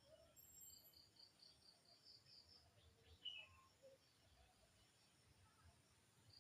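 Near silence with faint outdoor ambience: an insect chirping in short, even pulses, about five a second, and a single brief chirp about three seconds in.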